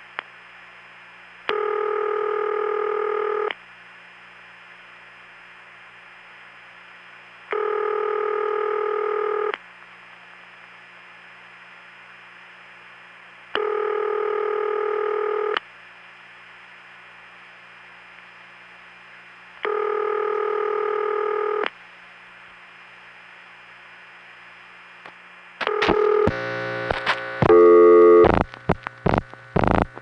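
Telephone ringback tone on a long-distance line: four two-second rings, one every six seconds, over a faint steady line hum. Near the end the ringing gives way to a quick jumble of clicks and tones on the line.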